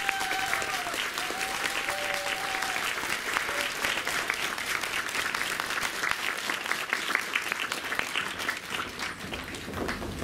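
Audience applauding steadily, a dense patter of clapping throughout. A few brief held tones sound in the first three seconds and fade out.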